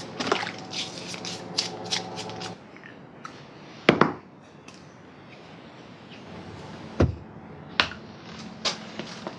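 A steady hum cuts off about two and a half seconds in. A few sharp knocks and clicks follow from metal tools and suspension-link parts being handled.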